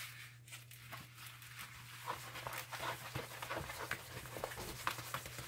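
Rubbing and crinkling of a diamond painting canvas's plastic cover film as it is pressed and rolled flat, a string of short scrapes and crackles from about two seconds in, over a low steady hum.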